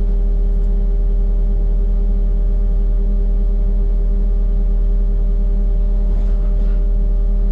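Engine running steadily at a constant speed: a low, even hum that holds one pitch throughout.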